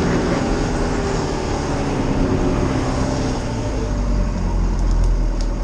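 Pickup truck engine heard from inside the cab, running steadily under load as the truck crawls up a muddy slope, its note easing down over the first few seconds. It is a two-wheel-drive truck adapted to run on gasoil that has little pulling power and loses grip easily. A few light clicks come near the end.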